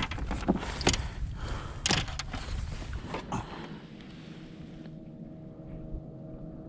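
A few sharp knocks on a plastic fishing kayak as a caught fish is handled, over low rumbling wind noise on the microphone. The rumble dies away about halfway through, leaving a faint steady hum.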